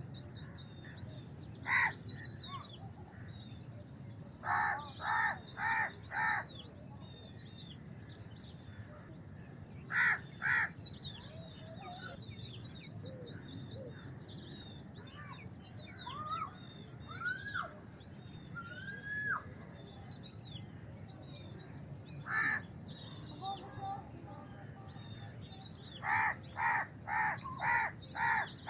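House crows cawing in short runs of harsh calls: one, then four in a row, then two, one more, and a quick series of six or seven near the end. Small birds chirp constantly in the background.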